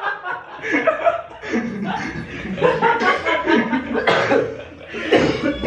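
Several men laughing, in short bursts of chuckling that keep breaking out as they try to hold it in.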